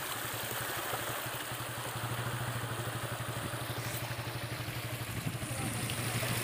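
Motorcycle engine running steadily at low revs, a fast pulsing hum under an even hiss, as the bike moves slowly through shallow floodwater.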